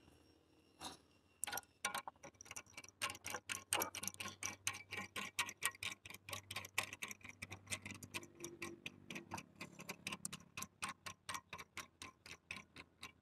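Quick, light clicking, about five clicks a second, of a plastic nut being spun by hand onto the threaded plastic bolt of a toilet seat hinge fixing.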